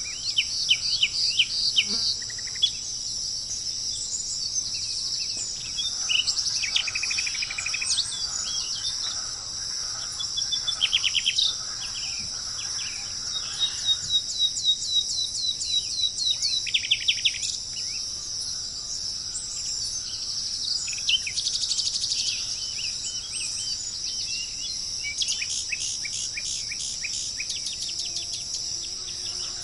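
Songbirds chirping in quick series of short, high notes, in clusters throughout, over a steady high-pitched buzz of insects.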